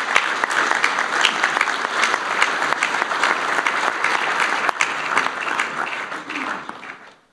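Audience applauding: many hand claps together, dying down in the last second and stopping abruptly.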